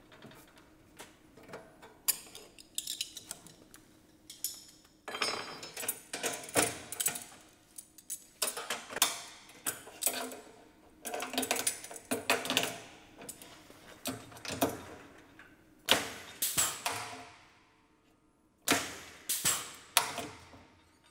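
Galvanized sheet-steel damper frame being closed and fixed by hand: irregular metal clanks, clicks and rattles, each ringing briefly, as the frame parts are pressed together, clamped with locking pliers and clinched at the corner.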